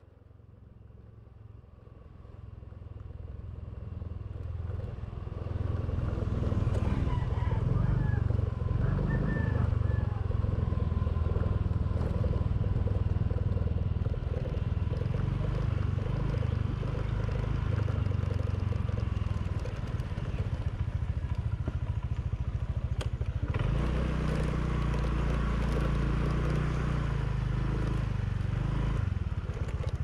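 Steady low rumble of a motor vehicle on the move, fading in over the first few seconds, with an abrupt change about three-quarters of the way through.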